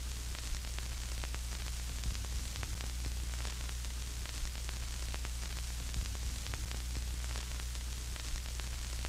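Steady static hiss with a low electrical hum underneath, broken by a few faint clicks.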